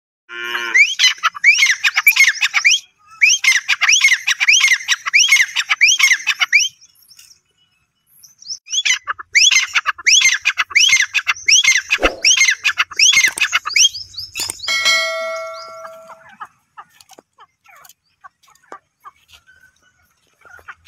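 Grey francolin calling: loud, shrill notes that rise and fall, repeated rapidly in three runs of a few seconds each with short pauses between. A short steady tone follows just after the last run, then only faint ticks.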